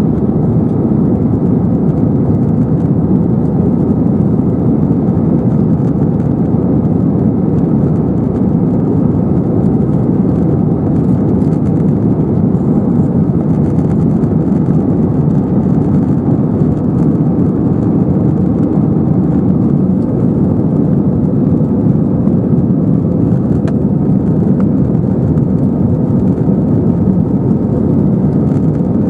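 Cabin noise inside an Airbus A321-212 climbing out after takeoff: a loud, steady drone of its CFM56 turbofan engines and the airflow, heard from a window seat over the wing.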